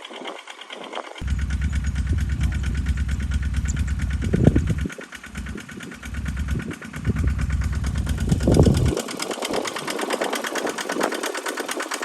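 Small tractor engine running with a fast, steady firing beat as it drives a pump lifting water into a rice field. A heavy low rumble joins about a second in, drops out briefly midway and stops near the end, leaving the engine's higher, rattly beat.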